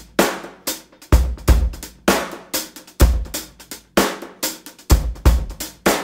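Background music: a drum-kit beat with kick drum, snare and hi-hat, heavy low thumps about once a second.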